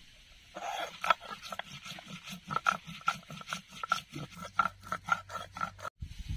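Stone roller ground back and forth on a flat stone grinding slab (shil-nora), crushing cumin seeds and bay leaf. It makes a gritty, rhythmic scraping of about four strokes a second, starting about half a second in and stopping abruptly near the end.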